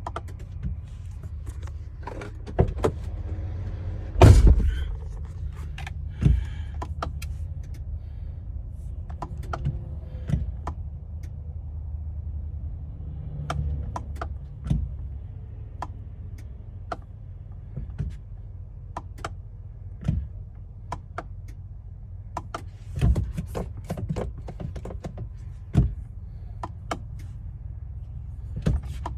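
A string of sharp clicks and knocks with a louder thump about four seconds in, like a van's door, keys and controls being handled, over a steady low rumble.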